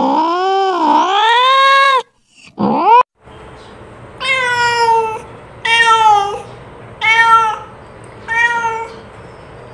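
Domestic cat meowing. A long, wavering meow ends about two seconds in, a short meow follows, and then come four separate meows about a second and a half apart.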